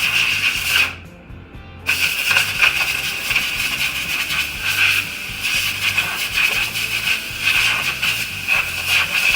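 Compressed-air blow gun hissing as air is blown through a 4T65E transmission drive chain to clean it: a burst that stops about a second in, then after a one-second pause a long burst that runs on to near the end.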